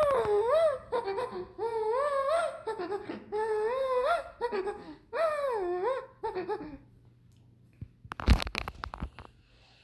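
A high-pitched voice giggling and squealing in a run of short, wavering sing-song calls that stop after about seven seconds. A couple of sharp knocks follow near the end.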